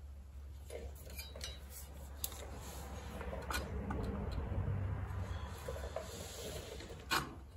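Steel bracket being shifted against a steel vehicle frame rail: light metallic clinks and scraping, with a sharper clank near the end.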